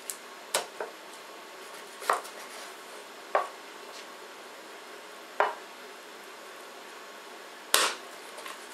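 Chinese cleaver chopping raw chicken thighs on a wooden chopping board: single sharp chops at irregular intervals, a second or two apart, the last one near the end the loudest.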